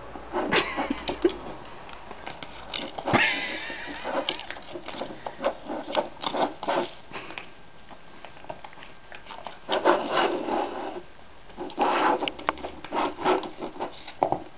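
Cats pawing and eating food out of a blue plastic anti-gulp slow-feeder bowl: a run of short clicks and rattles of food, claws and muzzles against the plastic, busiest in clusters near the middle and toward the end.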